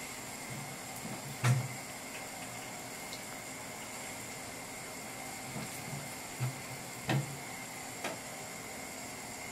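Trout pieces set one by one with silicone-tipped tongs into a simmering soup: a few short clicks and soft splashes as the tongs touch the bowl and pan and the fish goes into the liquid, the loudest about a second and a half in, over a steady low hiss.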